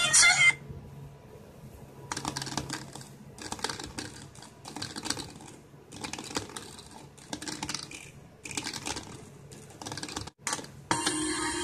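Irregular bursts of crackling and scratching clicks as an RCA plug is worked in and out of the jacks of a DTS optical 5.1 decoder board. The music being played through the board cuts off about half a second in and comes back near the end.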